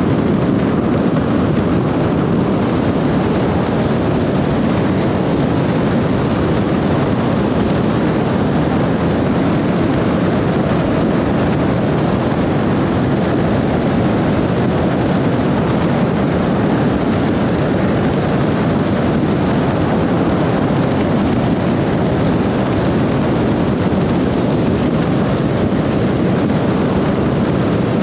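Steady road and wind noise of a car driving at highway speed, an even rush with no changes.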